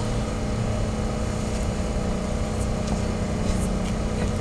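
A steady low mechanical hum over a faint hiss, with a few faint ticks in the second half.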